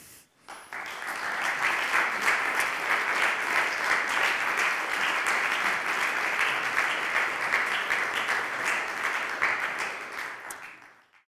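Audience applauding: the clapping starts about a second in, holds steady, and dies away near the end.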